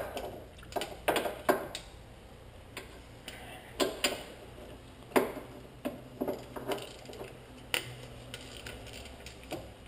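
Metal clicks and clinks of a flywheel/flex plate holding tool being fitted into place by hand under the car, a dozen or more irregularly spaced taps, over a low steady hum.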